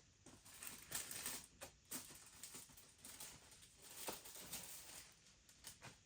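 Faint rustling and light clicking of a model kit's small photo-etch sheet, decals and their packaging being handled, in irregular bursts.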